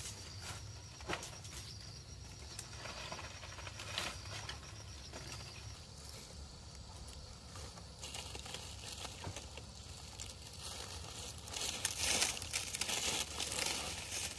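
Rustling and crinkling with scattered light knocks, growing louder about halfway through and loudest in bursts near the end. A faint, high, steady trill in the background stops about six seconds in.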